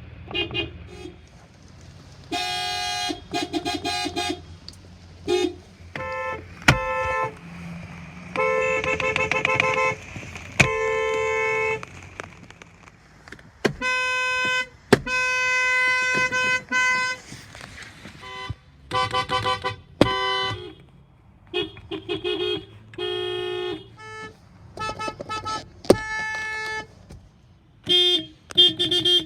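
Car horns sounding one after another, many times: short toots and longer blasts of differing pitch, some of them two-tone, over a low steady hum, with a few sharp clicks between them.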